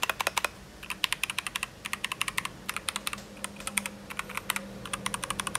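Typing on a Keychron K2 V2 mechanical keyboard with brown switches: quick runs of key clicks broken by short pauses. The keystrokes are not too loud and not too clicky.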